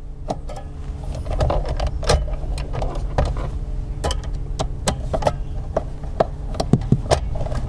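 Phillips screwdriver turning out a screw from the armrest's metal hinge bracket: a run of small irregular metallic clicks and scrapes. Underneath is a steady low hum that grows louder about a second in.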